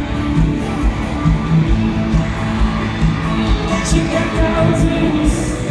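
Live pop-rock band playing through a large stadium sound system, heard from the stands: a steady kick-drum beat about twice a second under guitars and singing.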